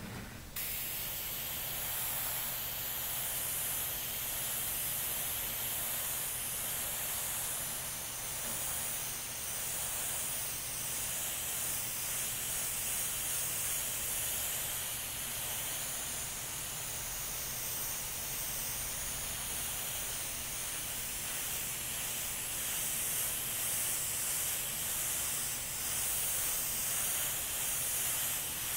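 Iwata Revolution BCR siphon-feed, double-action airbrush spraying paint: a steady hiss of air and paint that starts about half a second in.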